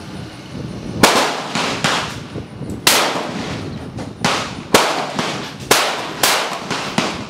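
Rifle shots at an outdoor range: a run of sharp cracks about one to two seconds apart, each with a short echoing tail, with fainter shots between the loudest ones.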